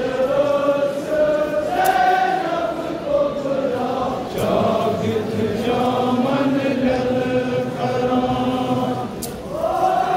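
Many men's voices chanting a Kashmiri nouha, a Shia mourning lament, together in long held notes.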